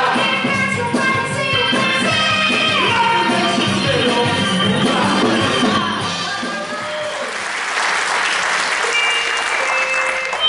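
A vocal ensemble sings with a live band for about six seconds as the number ends. An audience then applauds, the applause swelling over the last few seconds.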